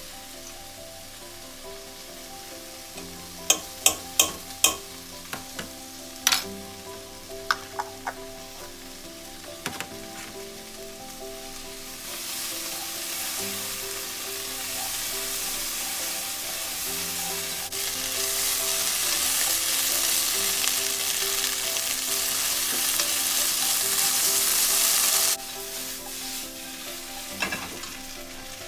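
Food frying and being stirred in a mess tin. A quick run of sharp metal knocks comes a few seconds in, then sizzling swells up, grows louder, and cuts off suddenly near the end. Background music plays underneath.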